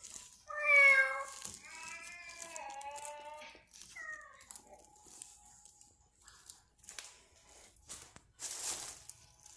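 Kitten meowing three times: a loud meow about half a second in, a longer wavering one, then a short falling one. A brief rustle near the end.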